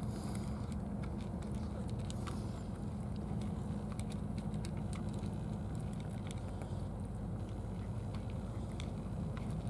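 Cats eating from small plastic dishes: scattered light clicks of chewing and licking over a steady low rumble.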